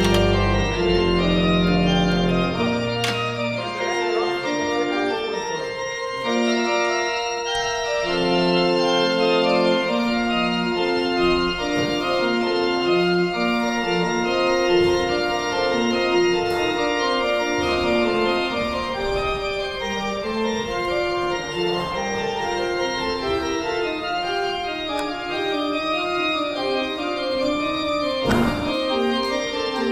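Pipe organ music played on the Zwier van Dijk church organ: slow held chords that change every second or so, with deep pedal bass notes in the first few seconds.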